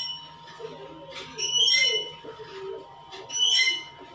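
Marker squeaking across a whiteboard in two writing strokes, about a second in and again near the end.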